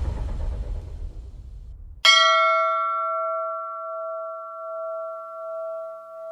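A low rumble fades away, then about two seconds in a bell is struck once and rings on, its high overtones dying quickly while the main tone hangs with a slow throbbing wobble.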